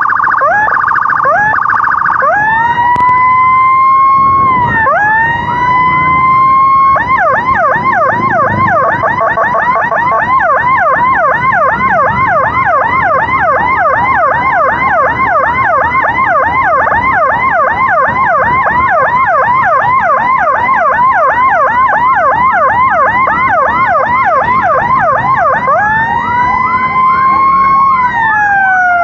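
Electronic emergency siren cycling through its tones: a short pulsed tone and slow rising-and-falling wails, then a fast repeating yelp for most of the time, going back to a slow wail near the end. Road and traffic noise lies underneath.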